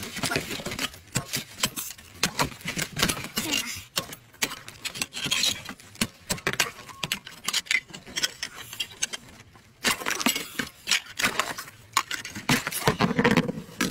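Irregular clatter of many short clicks and knocks from hard objects being handled, thinning out for a few seconds about halfway through.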